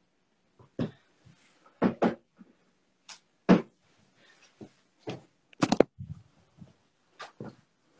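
About ten irregular sharp knocks and clacks of objects being handled and moved about in a small room, the loudest in the middle.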